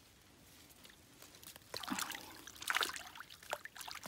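Light splashing and trickling of shallow stream water, coming in irregular bursts from about two seconds in, as a stick prods a snake caught on a set fishing line.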